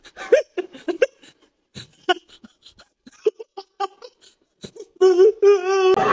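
A man laughing in short, broken bursts, then a held, wavering vocal cry near the end.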